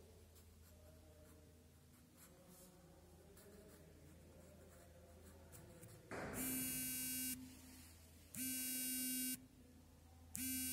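Faint scratching of a pen drawing lines on paper, then a harsh electronic buzzer sounds three times, each buzz about a second long and about two seconds apart, starting about six seconds in.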